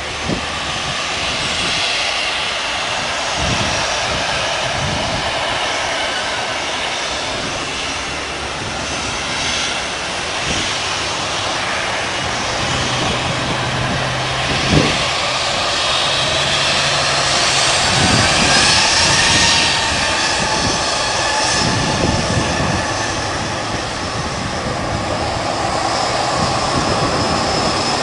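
Jet engines of a Boeing 737-800 (CFM56-7B turbofans) running steadily as the airliner rolls along the runway before takeoff, with a whine that rises in pitch about two thirds of the way through. Road traffic can be heard in the foreground, and there is a single short knock about halfway.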